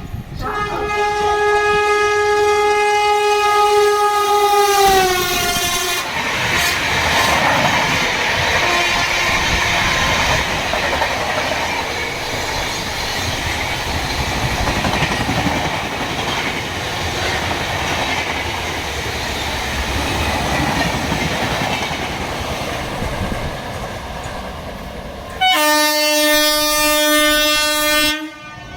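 WAP-7 electric locomotive horn sounding for about five seconds and sliding down in pitch as the locomotive passes, followed by the rush and wheel clatter of a passing express train. Near the end a second horn blast sounds for about three seconds and cuts off sharply.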